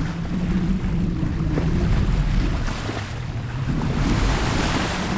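Wind and rushing water around a sailboat under sail in a fresh breeze, with wind buffeting the microphone and a steady low hum underneath.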